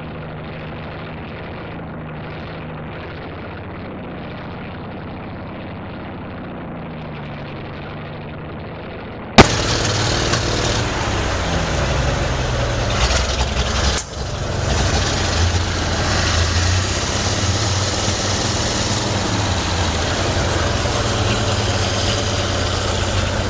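Early-1950s GMC truck engine running at idle, its speed wavering. It sounds muffled at first, then after a sharp click about nine seconds in it comes through louder and clearer.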